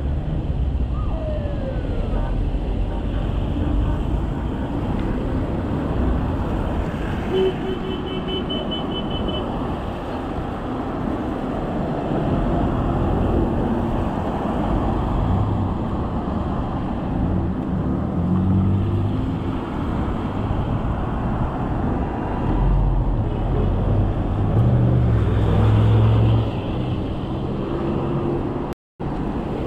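Road traffic heard from a moving bicycle: a steady rush of noise with car engines passing, louder from about two-thirds of the way through. A brief rapid high trill about eight seconds in, and the sound cuts out for a moment near the end.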